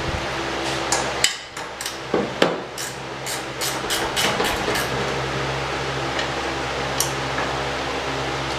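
Hand tools and metal hardware clinking and tapping in a series of sharp clicks, about a dozen over the first five seconds and one more near the end, over a steady low hum.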